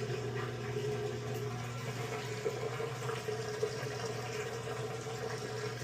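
Newly replaced drain pump of a Samsung WA47CG3500AV washer running with a steady hum, with little or no water left to pump: the new pump works.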